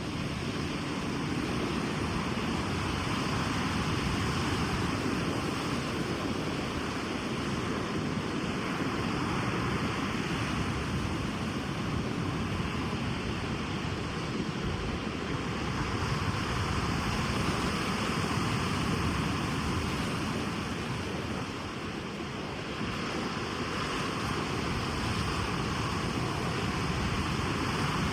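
Ocean surf washing on a beach: a steady rush of breaking waves that slowly swells and eases.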